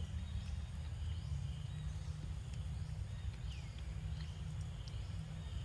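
Steady low wind rumble on the microphone, with faint short high chirps from a small bird repeating roughly once a second above it.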